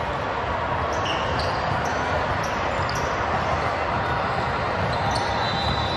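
Basketball being played in a gym: a ball bouncing and short, high sneaker squeaks on the court over a steady background hubbub.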